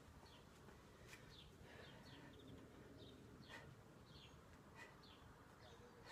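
Faint birds chirping in the background: many short, high, falling chirps repeated every second or so over a low, steady background.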